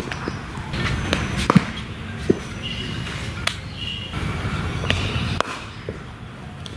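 Cricket ball striking bat and pitch in practice nets: several sharp knocks spaced a second or so apart over a low outdoor rumble.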